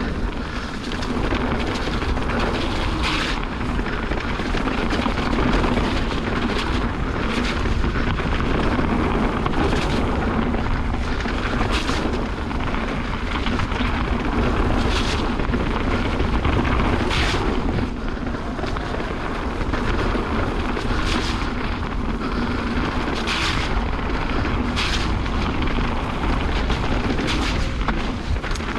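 Wind buffeting the microphone and tyres rolling over a dirt trail as a mountain bike is ridden along at speed, with about ten sharp rattles and knocks as the bike hits bumps.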